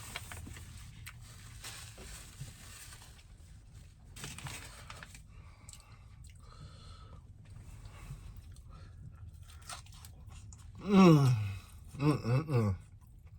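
A person chewing and biting into a fried chicken sandwich, with quiet crunching. Near the end come three short voiced sounds, falling in pitch.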